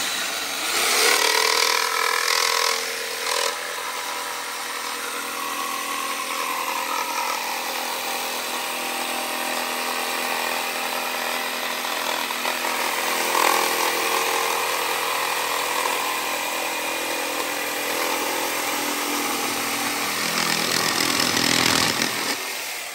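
Corded iBELL electric jigsaw cutting through thin plywood, its blade running steadily at a moderate speed setting, then stopping near the end.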